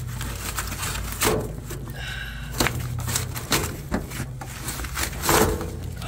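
Several knocks and rustles as a clogged, folded return-air filter is handled and worked out of an air handler's filter slot, over a steady low hum.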